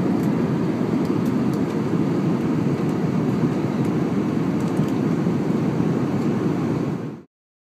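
Steady low cabin rumble of an Airbus A320 airliner in cruise, the noise of its engines and the airflow over the fuselage. It cuts off abruptly near the end.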